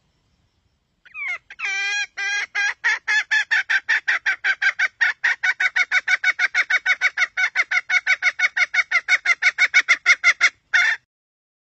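Red junglefowl hen call used as a wild-chicken lure: a long, even run of sharp clucking notes, about five a second. The first few notes waver in pitch, and the run cuts off abruptly before one last note near the end.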